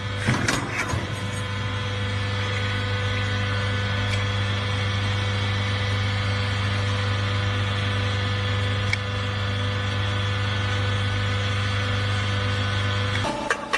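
Hydraulic punching and shearing machine's power unit, electric motor and pump, running with a steady hum. There are a few clicks in the first second, and the hum drops out about 13 seconds in.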